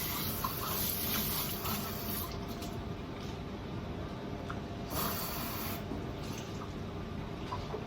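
Water running from a tap into a sink, in two spells: one over the first two seconds or so and a shorter one about five seconds in.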